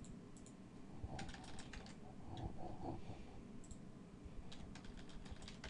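Faint clicking of a computer keyboard and mouse, in several short runs of quick clicks, as a value is typed into a settings field.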